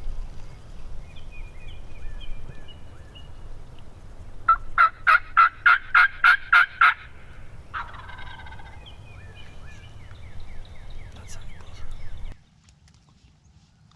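Wild turkey gobblers gobbling faintly. About four and a half seconds in comes a loud run of eight evenly spaced turkey yelps, then more faint gobbling. The sound cuts off suddenly near the end.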